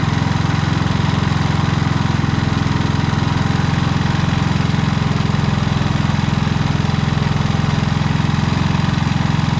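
Harbor Freight Predator generator engine running at a steady, even speed without surging. An adjusted idle stop screw now keeps the electronic idle from hunting too far.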